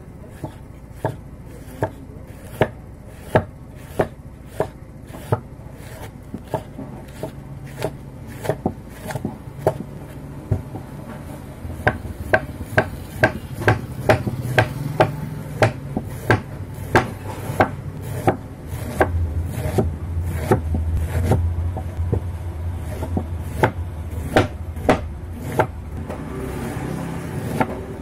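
A kitchen knife slicing a head of cabbage into thin shreds on a wooden cutting board. Each stroke ends in a sharp knock on the board, at about one to two a second, coming faster in the second half. A low steady hum sits underneath.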